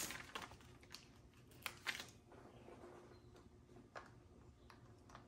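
Faint handling of diamond-painting supplies: a few short crinkles and taps from small plastic bags of drills and a paper sticker sheet, most of them in the first two seconds, with one more tap about four seconds in.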